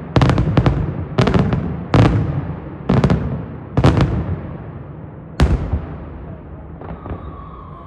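Fireworks going off in a daytime display: a rapid series of sharp, loud bangs, about one a second and some in quick pairs, each trailing off in a rumbling echo, with the reports growing weaker near the end.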